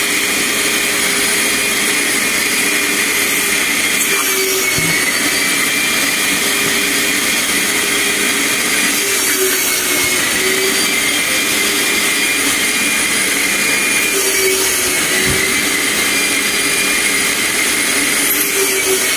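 Stainless-steel canister spray-extraction vacuum running steadily, a high whine over a loud rush of air, as its upholstery nozzle sucks water out of a flood-soaked car seat cushion. The whine dips slightly in pitch a few times.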